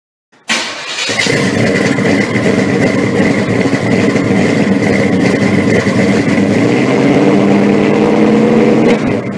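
A car engine starts suddenly and runs steadily, loud, then cuts off abruptly near the end.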